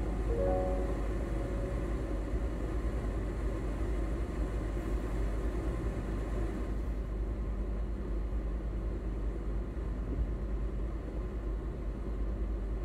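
Steady low rumble inside a car's cabin while the car sits stopped with its engine idling, traffic noise mixed in.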